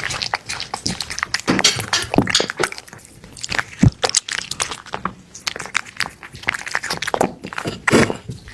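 A cat chewing and crunching food: irregular wet crunches and clicks of teeth.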